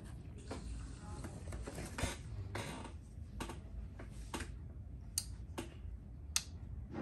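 Sharp, irregularly spaced clicks, a few of them loud, after a stretch of rustling handling noise in the first few seconds.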